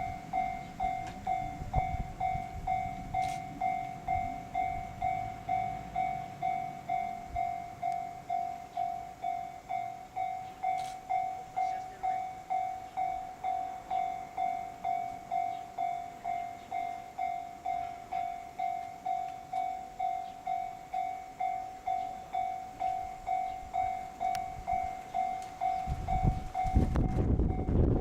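Railway level-crossing warning bell ringing, a steady pulse of under two strokes a second, signalling that a train is coming. A low rumble builds up near the end.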